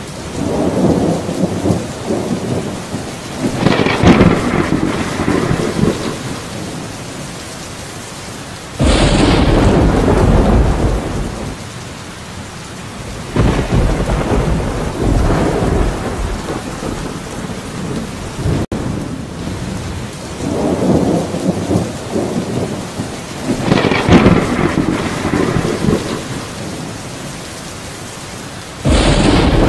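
Steady heavy rain with rolling thunder. The rumbles swell and fade several times, and a loud thunderclap breaks in suddenly about nine seconds in and again near the end.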